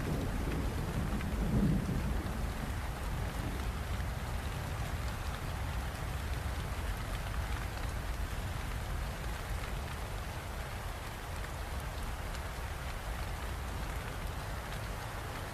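Steady rain falling, with a low rumble of thunder dying away in the first two seconds or so.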